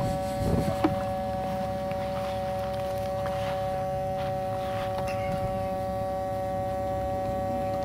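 Steady two-note electronic whine from the armed electric ducted-fan jet's motor and speed controller, with a light knock of handling about a second in.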